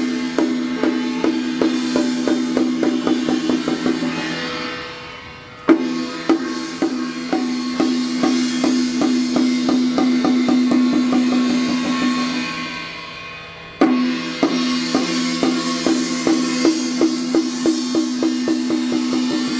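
Temple hand drum and gong beaten for a spirit medium's trance: a loud accented stroke, then a long run of drumbeats that speed up over a steady ringing gong tone and fade, the cycle starting again about every eight seconds.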